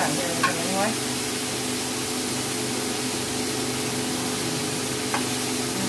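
Chicken pieces sizzling in a hot stainless-steel roasting pan as they are stirred with a spatula, a steady hiss over a low hum. There are a few brief sounds about half a second in and a light tap near the end.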